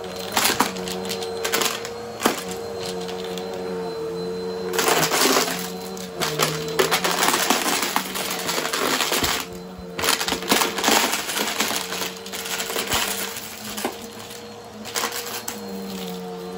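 Bagless upright vacuum cleaner running on a rug, its motor humming steadily with the pitch wavering slightly as it is pushed back and forth. Small hard debris clicks and rattles up the nozzle as it is sucked in.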